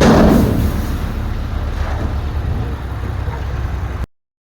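Diesel engine of a Komatsu D31P bulldozer running, a steady low rumble that is briefly louder at the start. It cuts off abruptly about four seconds in.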